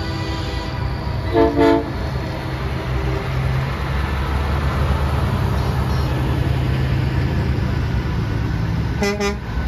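Truck air horns sound in short double blasts, once about a second in and again near the end, over the steady low rumble of truck engines.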